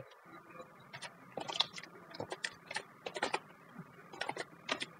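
Typing on a computer keyboard: quiet, irregular keystroke clicks at a few keys a second.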